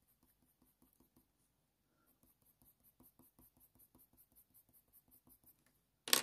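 Faint scratching of a Faber-Castell Polychromos coloured pencil (brown ochre) shading on hot-press watercolour paper, in short strokes that settle to about four a second in the second half. A louder sharp sound comes at the very end.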